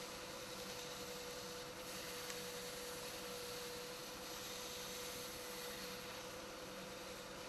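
Wood lathe running at low speed: a steady faint whine from its motor over a light hiss.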